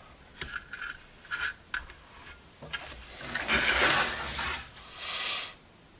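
Hands handling the socket set's case: a few light scuffs and taps, then a long rubbing scrape about three and a half seconds in and a shorter one just after.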